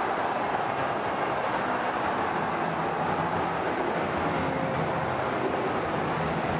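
Football stadium crowd making a steady, even din of many voices.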